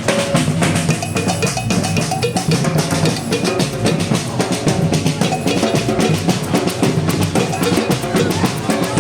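Percussion ensemble of a batucada group playing live: deep bass drums under snare drums in a dense, unbroken rhythm.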